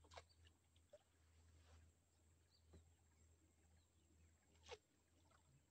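Near silence, broken by a few faint, brief ticks spread through it; the clearest comes about three-quarters of the way through.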